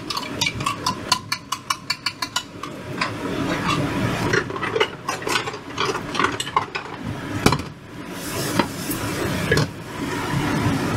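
A spoon scrapes and taps minced garlic and chili peppers out of a plastic container into a frying pan of hot oil, a quick run of clicks over the first couple of seconds. Scattered clatter and rubbing of utensils follow.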